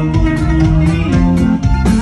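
Live norteño band music: electric bass guitar and plucked strings over a steady drum beat.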